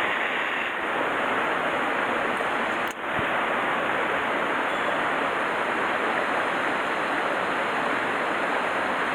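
Steady rush of a shallow mountain stream running over rocks and gravel, with a brief click and dip about three seconds in.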